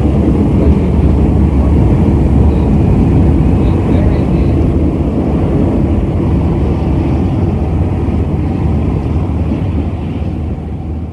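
Steady, loud low vehicle rumble, like an engine running, starting to fade out near the end.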